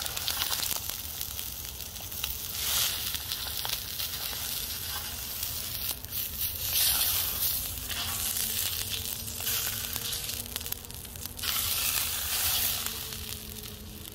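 American eel fillet, coated in flour, frying in hot oil in a stainless steel pan, sizzling steadily, with louder surges of sizzling three times.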